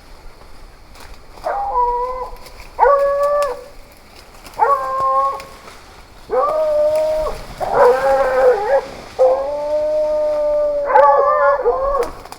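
Hunting dog baying: a run of about eight drawn-out, howling barks, each up to a second and a half long, with a short gap after each.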